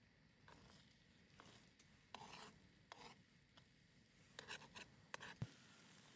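Faint handling noises: a series of short scrapes, rubs and clicks, with a sharper knock near the end.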